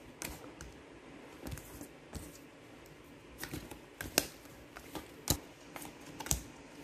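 Pokémon trading cards being laid down one at a time onto a pile, giving light, irregular taps and clicks of card on card, a few of them sharper near the end.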